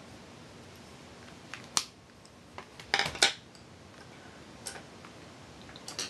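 Small hard makeup items being handled: a few sharp clicks and knocks, loudest in a short clatter about three seconds in, like brushes and compacts being put down and picked up. A low steady hiss lies beneath.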